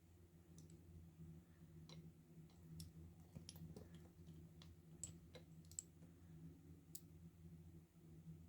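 Faint, irregular small clicks and ticks of a Paclock 90A Pro padlock's parts being handled as its core is taken apart with a follower, about a dozen spread unevenly, over a low steady hum.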